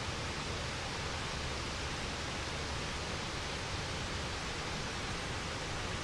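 Waterfall: a steady rush of falling water.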